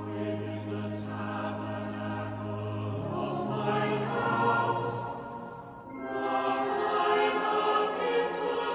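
Choir singing slow, sustained sacred music. A low note is held for the first three seconds before the harmony shifts, and a brief breath-like dip comes about six seconds in before a new phrase begins.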